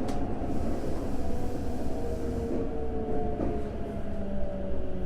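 Tokyo Metro 05 series train's Mitsubishi IGBT-VVVF inverter and traction motors whining over steady wheel-and-rail rumble inside the car, the whine's tones slowly falling in pitch as the train brakes for a station.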